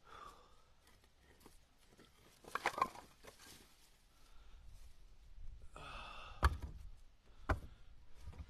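Split pieces of seasoned red oak firewood knocking against each other as they are picked up from a pile and stacked into a pickup's bed. There is a clatter of knocks about two and a half seconds in, then a short scrape and two sharp knocks about a second apart near the end.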